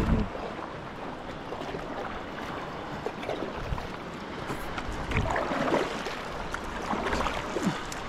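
Sea water sloshing and lapping against a small boat: an irregular splashing wash with no engine running.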